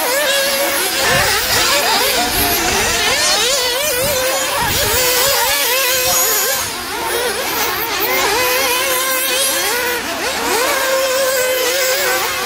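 Several nitro RC cars' small two-stroke glow engines revving up and down together as they race, with many pitches rising and falling at once.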